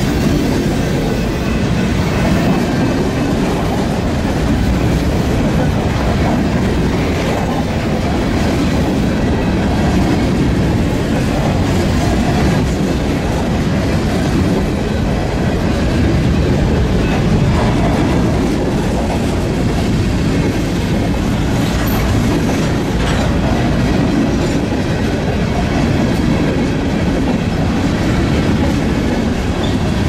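Freight train's covered hopper cars rolling past: a steady rumble of steel wheels on rail, with occasional clicks as the wheels cross rail joints.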